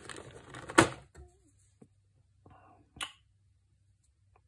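Plastic miniatures clicking and rattling as they are pried out of a plastic box insert tray and handled. A sharp click comes just under a second in and another about three seconds in.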